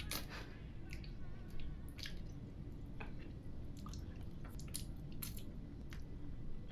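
Soft wet squelching with scattered small clicks and drips, something slimy being wiped clean.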